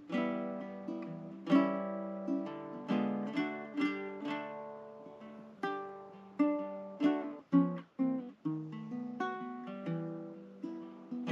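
Background music on a plucked acoustic guitar: a slow run of single notes, each ringing out and fading.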